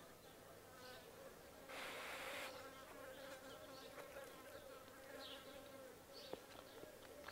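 Faint buzzing of a flying insect, its hum wavering slightly in pitch, with a short rustling hiss about two seconds in.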